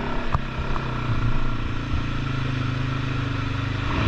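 ATV engine running steadily at low speed, with a single click about a third of a second in; the engine starts to rev up near the end.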